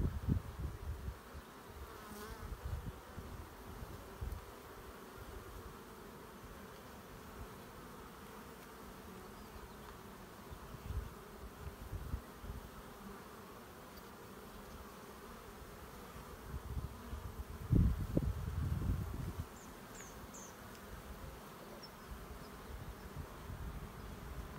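Honey bees buzzing steadily over an open hive whose frames are being lifted out, with occasional low bumps, the largest about 18 seconds in.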